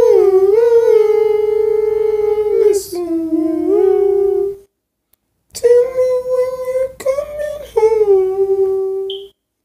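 A woman's voice singing a slow melody without words and without accompaniment, in long held notes. There are two phrases, with about a second of silence between them just before the halfway point.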